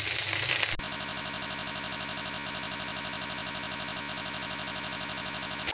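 Sizzling from a pan of frying rice, cut off after under a second by a steady electronic tone with a fast, even flutter, which stops abruptly near the end.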